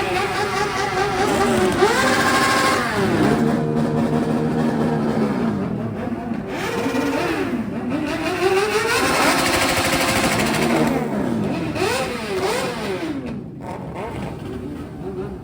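Several sportbike engines revving, their pitches repeatedly rising and falling and overlapping. The sound eases off somewhat in the last couple of seconds.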